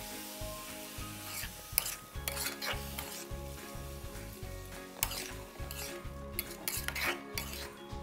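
Metal spatula stirring and scraping spinach leaves, coconut and jackfruit seeds around an aluminium pan, with irregular clacks against the pan and a light sizzle from the hot pan.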